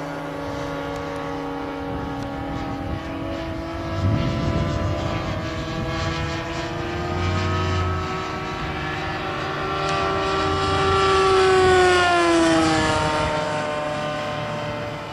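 Nitro-fuelled O.S. 1.60 glow engine of a giant-scale RC sport plane running at high throttle with its propeller buzzing as it flies. The engine note climbs slowly in pitch, is loudest about twelve seconds in, then drops in pitch near the end.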